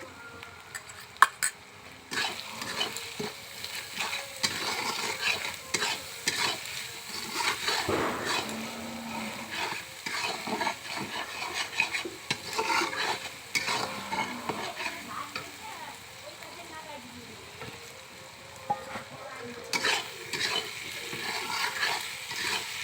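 Food frying in a pan while it is stirred: a utensil scrapes and knocks against the pan in irregular strokes over a sizzle. There is a sharp click about a second in, and the stirring eases for a few seconds past the middle.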